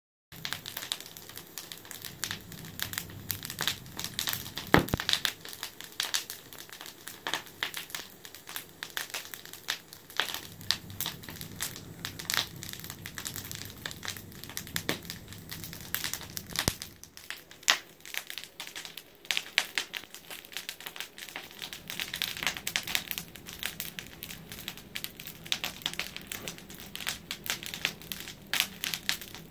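Wood fire of burning logs crackling, with dense, irregular snaps and pops, a few of them louder than the rest.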